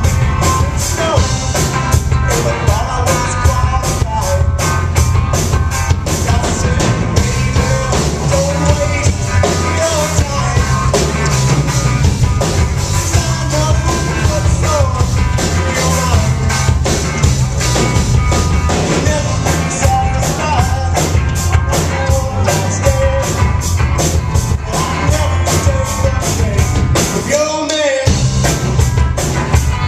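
Loud rock music with a drum kit keeping a steady beat and a melody line over it, with a brief break in the bass near the end.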